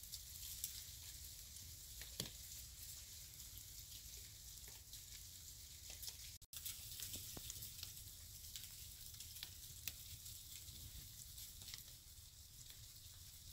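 Faint outdoor ambience: a steady light hiss with a low rumble underneath and scattered small ticks and crackles, cut by a brief dropout about six and a half seconds in.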